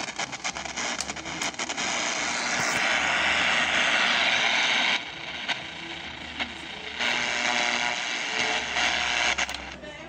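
Pensonic portable AM/FM radio putting out loud static hiss through its speaker, with scattered crackles and clicks as the AM/FM selector switch is worked. The hiss drops back about halfway through and returns about two seconds later. The crackling marks a dirty selector switch that loses contact.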